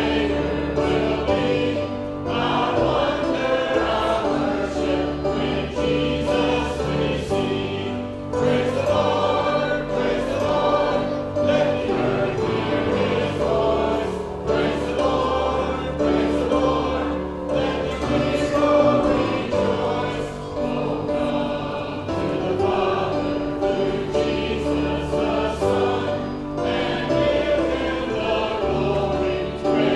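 A church choir singing a gospel hymn with musical accompaniment, steady low notes held under the voices.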